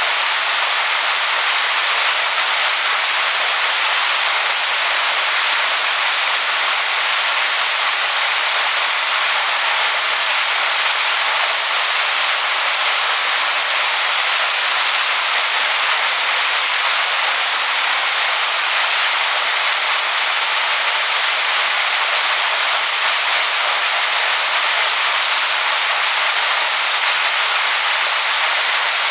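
Waterfall rushing over stones: a steady, unbroken hiss of falling water, strongest in the high range with little low rumble.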